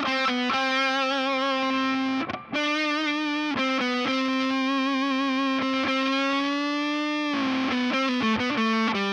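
Electric guitar through Seymour Duncan Antiquity humbucker pickups, played as a single-note lead with overdrive. Notes are held with vibrato, with one long sustained note in the middle and short breaks between phrases.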